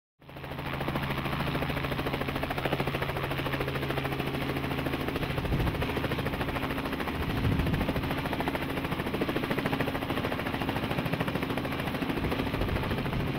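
Helicopter in flight: a steady rapid blade chop and engine hum over a hiss. It fades in at the start and fades out near the end.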